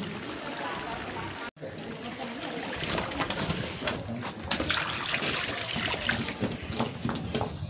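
Water being poured from a bowl into mutton curry cooking in an iron karahi, trickling and splashing. Sharp knocks of the ladle against the pan sound through the second half.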